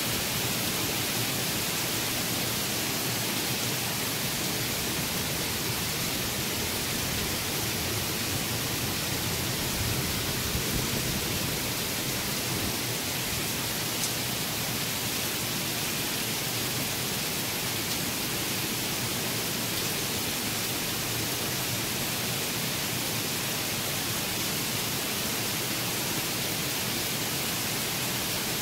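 Heavy rain in a summer thunderstorm, pouring down in a steady, even hiss.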